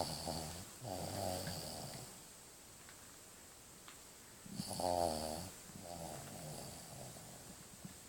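A sleeping puppy snoring. There is a loud pitched snore on the in-breath about halfway through, and each snore is followed by a softer, longer breath out.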